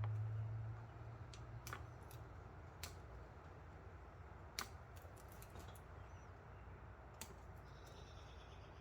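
A few scattered sharp clicks and snips of hand tools working on electrical wire, the sharpest about halfway through. A low hum dies away within the first second.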